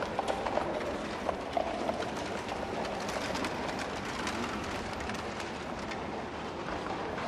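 Horse-drawn carriage on the move: a steady rumble of rolling wheels, with hoof clops clearer in the first couple of seconds.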